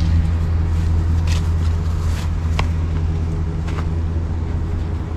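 An engine idling steadily with a low, even hum, with a few light clicks over it.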